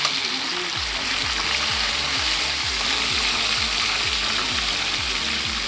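Marinated pork pieces frying in hot oil in a pan, a steady sizzle. A low thump repeats about twice a second from about a second in.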